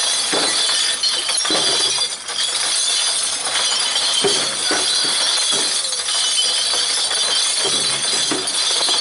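Cement mixer drum tumbling beer bottles dry with a few fist-sized rocks. The glass crashes and clinks continuously, with many sharp smashes as the bottles crack and break up.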